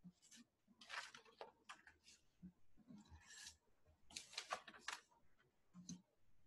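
Near silence: room tone with a few faint, brief sounds.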